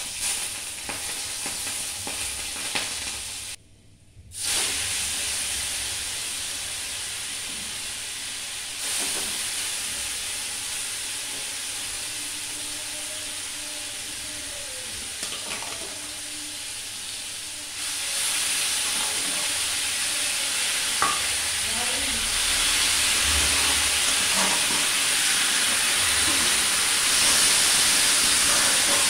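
Hot oil sizzling in a kadai with cumin seeds, dried red chillies and green chillies frying, a steady hiss that drops out briefly about four seconds in and grows louder in the second half. Near the end, washed moong dal is tipped into the hot oil from a steel colander and the pan hisses with steam.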